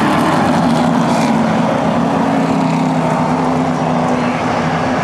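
A pack of pro stock race cars' V8 engines running together in a steady, loud drone.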